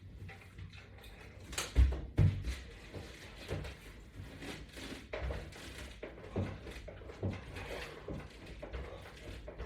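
Irregular soft knocks and thuds from a resistance-band workout during pull-down crunches, the two loudest close together about two seconds in, then smaller ones every second or so.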